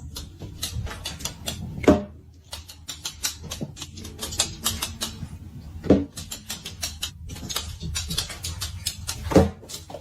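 Rapid, irregular clicking and tapping in a small room, with three louder thumps: about two seconds in, about six seconds in and near the end.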